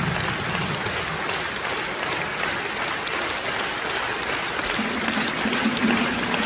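Theatre audience applauding steadily. About five seconds in, a low held musical note comes in underneath.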